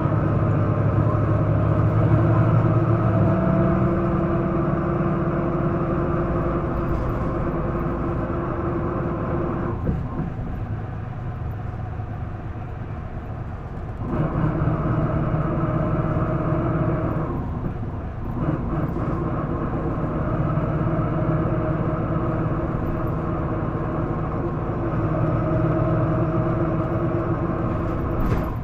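Isuzu Erga (PDG-LV234L2) city bus's turbo-diesel engine heard from inside the cabin, pulling with the revs held high and stepping through gear changes. Its note drops away for a few seconds in the middle and breaks briefly at a shift soon after. This bus is known to its recorder for an odd mechanical noise it did not make when new.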